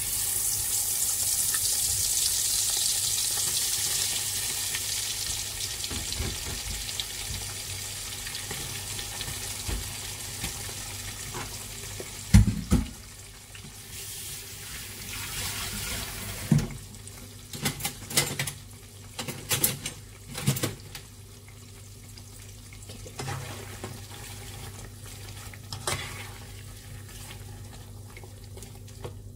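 Slices of boiled lung going into hot oil in a pot, sizzling loudly at first, then the frying hiss settles and grows quieter. From about halfway, a spatula knocks and scrapes against the pot a few times as the pieces are stirred.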